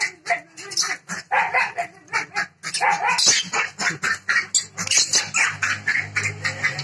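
Dog barking and yipping in quick, irregular bursts while play-wrestling with a young monkey.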